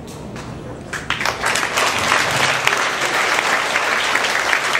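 Audience of schoolchildren applauding. The clapping breaks out loudly about a second in as the song ends, a dense crackle of many hands.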